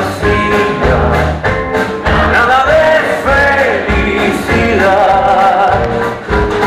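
Live band music from a vintage-style ensemble: acoustic guitar, double bass and drums under a melody line that wavers with vibrato. Heard from within the audience.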